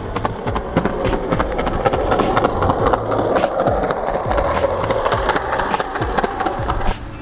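Skateboard wheels rolling on a concrete sidewalk: a steady rolling rumble with frequent short clacks.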